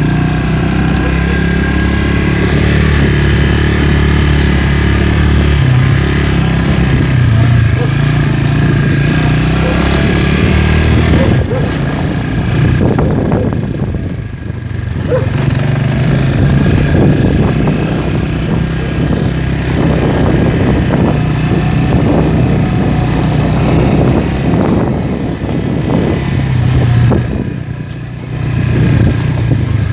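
Italika RC200 single-cylinder motorcycle engine running on a test ride, its pitch rising and falling with the throttle. It eases off briefly about halfway through and again near the end.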